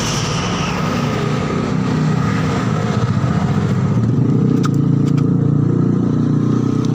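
Electric air compressor running with a steady drone that gets a little louder about two seconds in. The owner says its tank is full of water, which is why its air output has gone weak.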